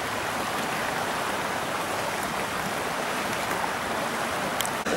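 Small creek rapids: water rushing over rocks in a steady, even rush.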